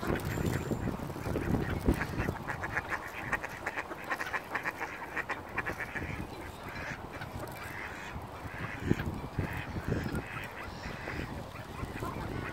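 Mallard ducks quacking: a fast run of calls a couple of seconds in, then slower, separate quacks.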